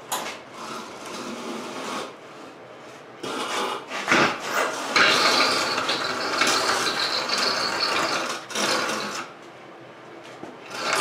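A ratchet mechanism clicking rapidly in runs. The longest and loudest run lasts about three seconds from about five seconds in, with shorter runs before and after it.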